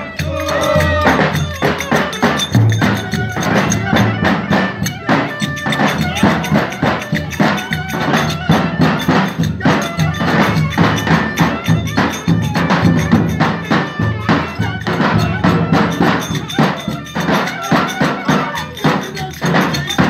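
Live folk dance music from davul bass drums beating a fast, steady rhythm, with sharp clicking percussion on top and a melody of held notes.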